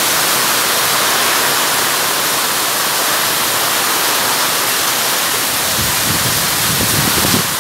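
Torrential rain pouring down on the street and the shop awning: a loud, steady hiss, with a low rumble rising under it near the end.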